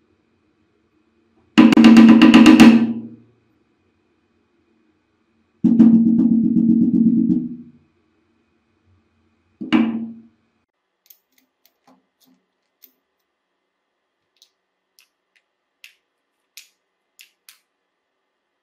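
Claw hammer with a hot-glue cap over its face struck rapidly on a wooden board in three runs of strikes, two long runs and a short one about ten seconds in, the board ringing low under the blows. Faint scattered clicks follow.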